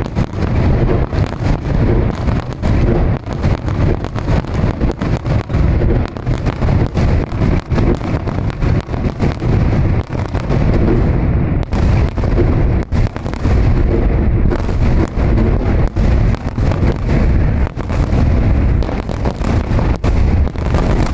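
Aerial firework shells bursting in a dense barrage, deep booms overlapping without pause and sharp pops all through.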